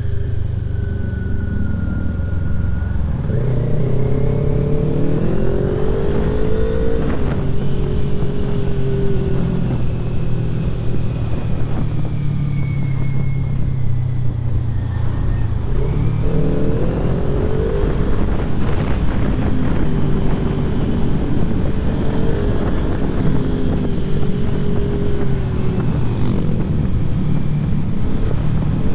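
Motorcycle engine under way on the open road, its pitch rising as it accelerates about four seconds in and again about sixteen seconds in, then settling to a steady cruise, over a constant low rush.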